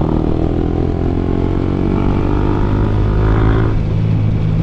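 Yamaha MT-15's single-cylinder engine accelerating in fifth gear, its note rising steadily for nearly four seconds and then dropping away just before the end, over a steady low rumble.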